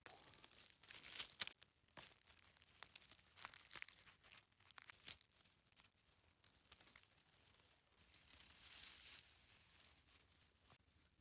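Faint crackling and rustling of dry leaf litter and grass as a hand works through it to pick bolete mushrooms, with a couple of sharper snaps about a second in.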